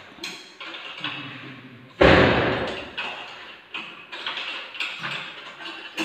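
A loud thud about two seconds in, then a string of lighter knocks: a heavy ceiling-mounted inverter air-conditioner indoor unit being lifted and bumped into place overhead on metal scaffolding.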